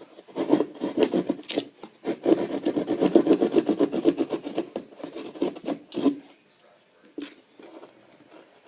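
Hand drywall saw rasping through gypsum drywall in quick back-and-forth strokes, in bursts, stopping briefly about six seconds in.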